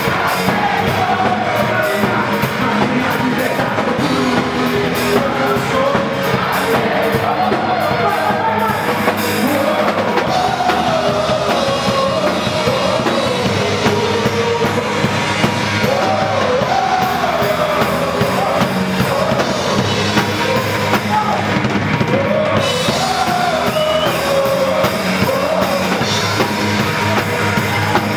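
Loud gospel rock music with a full drum kit and a wavering lead melody, most likely a singing voice.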